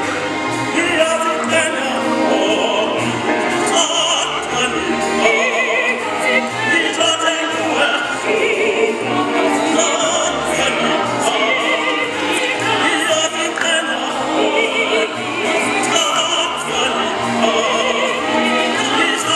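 A mixed ensemble of school singers, boys and girls, singing classical vocal music with vibrato, accompanied by a string orchestra.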